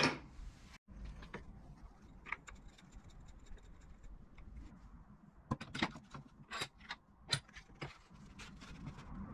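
A sharp metal clack right at the start from the steel handle of a bench vise, then small wooden spacer parts handled and set against a wooden workbench and vise jaw: scattered light wooden knocks and clicks, several in quick succession in the second half.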